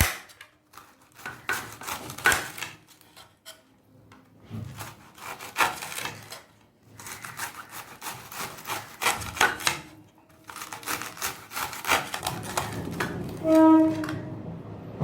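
Kitchen prep: a knife cutting and scraping on a wooden chopping board, in irregular runs of quick strokes with short pauses between them. Near the end a short pitched tone sounds.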